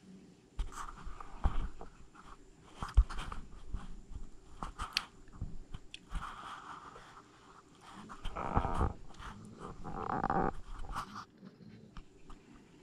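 Raccoons eating oatmeal from plastic bowls: irregular chewing, crunching and knocks, with louder scuffling bursts a little past the middle as they jostle over the food.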